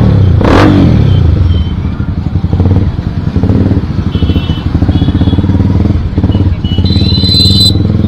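Motorcycle engine running at low speed with a rapid, even exhaust beat. Two sharp cracks come in the first second, and a brief high beep sounds near the end.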